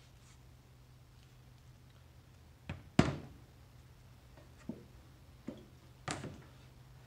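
A curved steel truck front-end part set down on a hardboard-topped table with a loud knock about three seconds in, just after a lighter one. Two lighter knocks follow, then another sharp knock about six seconds in as a paint tin is set down.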